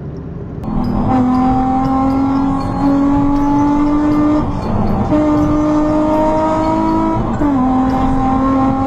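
A 2008 Chevrolet Meriva's 1.8 four-cylinder engine accelerating hard through the gears, heard from inside the car. The engine note climbs steadily and drops sharply at two upshifts, about halfway through and again near the end.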